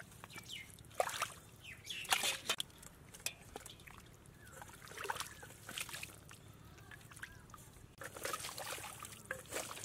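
Wet mud and shallow water sloshing and squelching as hands and a steel bowl scoop through a muddy canal bed, in irregular splashes and slaps.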